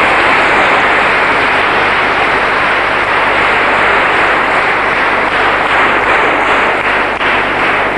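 An audience applauding steadily, many hands clapping at once in a dense, even patter.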